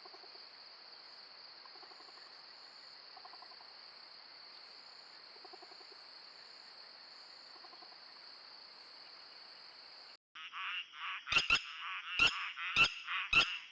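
A trail camera's night ambience: a steady insect hum with faint frog calls every second or two. About ten seconds in it cuts to loud, sharp alarm calls of red-wattled lapwings, repeated about twice a second, the birds upset by a civet close by.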